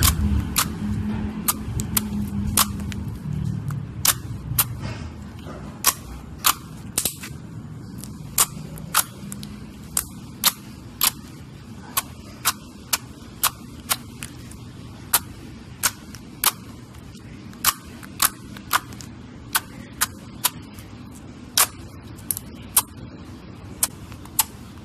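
Glossy metallic slime being pressed and folded by hand, letting off sharp air-bubble pops and clicks, about one or two a second at uneven intervals, over a low squishing.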